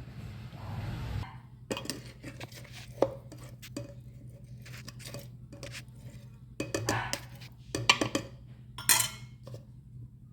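Metal kitchen utensil clinking, knocking and scraping against cookware in an irregular run of sharp knocks, busiest around seven to nine seconds in.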